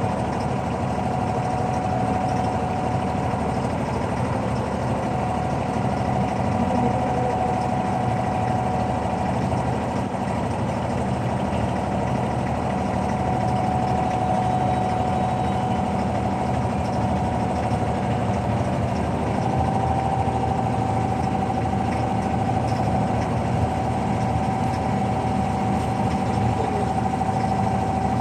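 An abra water taxi's diesel engine runs steadily as the wooden boat moves across the water, with a constant whine over the engine drone.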